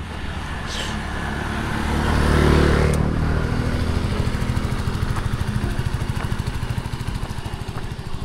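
A motor vehicle passing on the road, growing louder to a peak about two and a half seconds in and then fading, over a steady low engine rumble.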